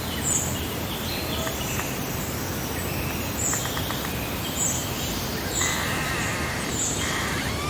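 Several songbirds singing and chirping over a steady rushing background. One bird repeats a short high note about once a second while others warble in between.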